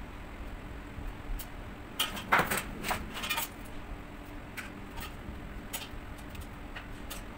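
Metal kitchen utensils and hands clinking and scraping on steel baking trays and a large steel pot, with a cluster of sharp clatter about two seconds in and scattered light clicks after it, over a steady low hum.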